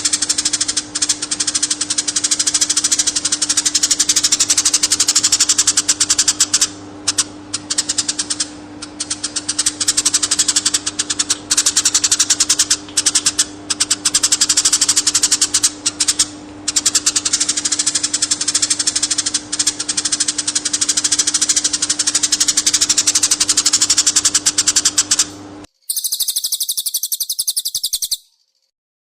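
Recorded songbird song for training caged birds: a fast, continuous rattling trill that chatters on with brief breaks, over a steady low hum. Near the end it cuts to a short high hissing sound of about two seconds, then stops.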